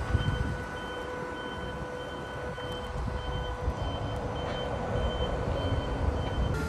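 Warning beeper of a mobile train-washing machine giving a short high beep about every half second, over the steady hum of its running machinery and a low rumble.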